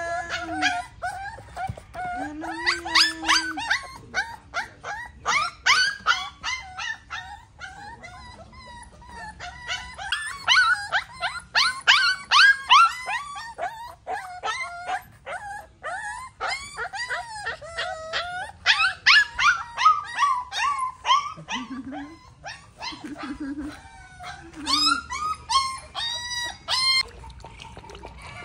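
Young puppies whimpering and yelping: high-pitched, wavering cries in quick runs with brief lulls, ending in a burst of rapid yips.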